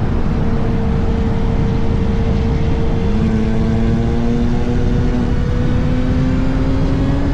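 2024 Kawasaki ZX-6R's 636 cc inline-four engine running under way, over heavy wind rush. Its note changes about three seconds in, then rises slowly as the bike gathers speed.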